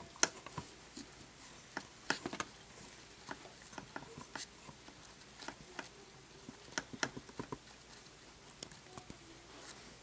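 A thin rod stirring heated Epsom salt crystals in a metal spoon, clicking and scraping against the spoon in faint, irregular little clusters.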